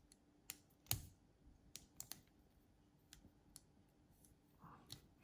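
Scattered light metal clicks and taps of a Leatherman Signal multi-tool being handled as its handle is opened and a folded tool pulled out, with one sharper knock about a second in.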